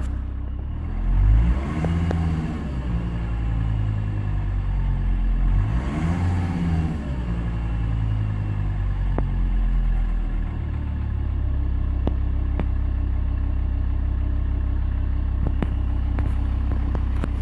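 Volvo V70 2.5 TDI five-cylinder turbodiesel running. It is revved up and let back down twice, then held steady at low revs, where the owner hears an unexplained strange noise at about 1,000 rpm.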